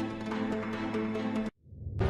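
Background music holding sustained tones, cutting off suddenly about a second and a half in.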